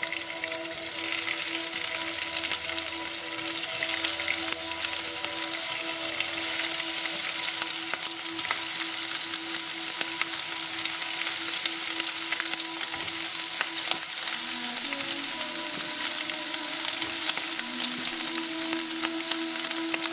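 Food frying in a pan: a steady sizzle of hot oil with constant fine crackling, over soft background music.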